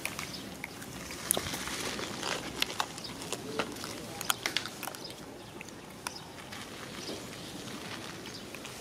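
Outdoor ambience with a steady background hiss and scattered, irregular sharp clicks and crackles.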